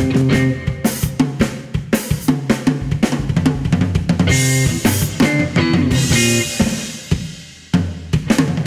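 Drum kit and electric guitar playing an instrumental duo, with kick drum, snare, cymbals and strummed guitar chords through an amp. The playing thins out and fades around seven seconds in, then the full band comes back with a sharp hit near the end.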